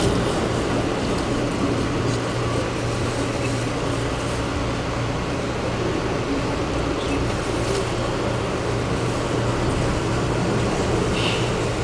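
Steady running noise of an Amtrak passenger coach rolling along the track at speed, heard from inside the car, with a constant low hum and a faint click or rattle now and then.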